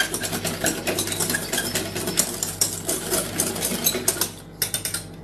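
A utensil beating rapidly against the inside of a container, whisking cornstarch and powdered milk into a little milk until it dissolves. A fast run of clicks that thins out about four seconds in.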